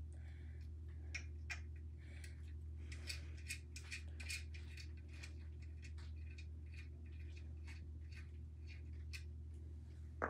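Faint, irregular metallic clicks and light scraping as small thumbscrews are worked by hand on a metal embroidery frame holder, over a steady low hum.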